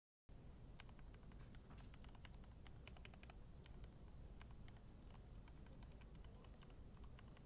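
Faint mechanical keyboard typing on Gateron Milky Yellow Pro linear switches: a quick, irregular run of keystroke clicks, starting just after the beginning.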